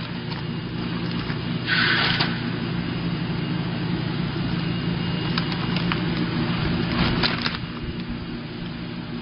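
Automatic coffee-bean packaging machine running with a steady hum, with a few clicks and two short bursts of noise, about two seconds in and about seven seconds in.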